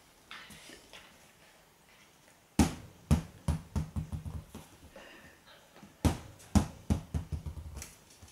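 A tennis ball bouncing on a wooden floor, set going twice; each time it bounces several times, the bounces coming quicker and quicker as it settles.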